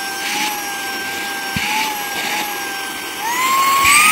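SUiTU ST6645 Pro handheld vacuum cleaner's brushless motor running with a steady high whine, then about three seconds in spinning up to a higher pitch as it steps up to its faster speed.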